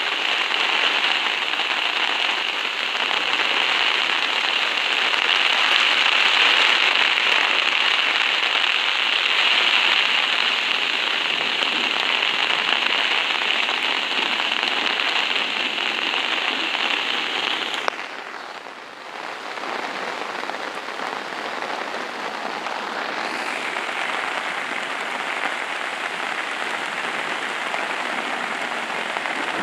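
Heavy rain falling steadily on a DD Hammocks camping tarp, a dense hiss of drops on the stretched fabric. About two-thirds of the way through it dips abruptly and then goes on a little quieter.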